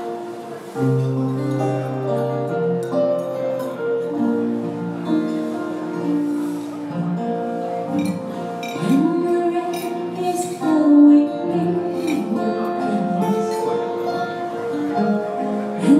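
Live band playing a slow ballad on keyboard with guitar, sustained chords underneath. A singing voice comes in over the chords about halfway through.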